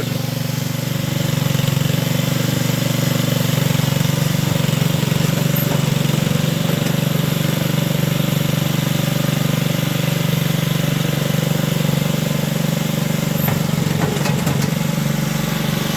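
Honda GX160 single-cylinder engine on a power dumper running at a steady speed while the hydraulic bucket is tipped to dump its load.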